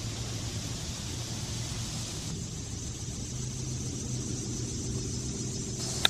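Steady low rumble of distant road traffic, with an even hiss over it.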